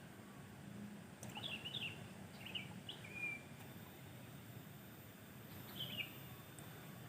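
A bird chirping in short calls, a cluster of them from about a second in and another brief call near the end, over a steady low outdoor rumble.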